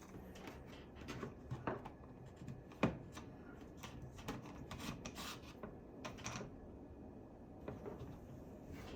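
Handling noise from a part being fitted back onto an airsoft rifle: light rubbing and scattered clicks of plastic and metal parts, the sharpest click about three seconds in.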